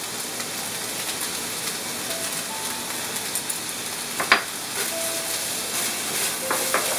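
Cabbage, carrots and rice noodles sizzling steadily in a hot nonstick frying pan while a silicone spatula stirs them. There is one sharp knock about four seconds in.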